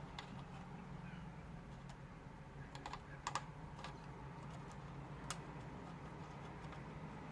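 A few sharp light clicks and taps, small plastic and metal parts being handled and pried at while working a lawnmower engine's primer bulb loose, over a low steady hum.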